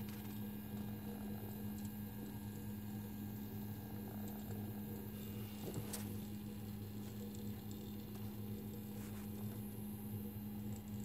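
Steady low buzz of a small battery-powered ladybug robot toy's motor running, with one faint tick about six seconds in.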